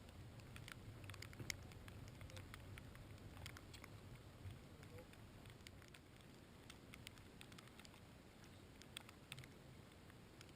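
Near silence: faint, irregular small ticks and pattering over a low, steady rumble.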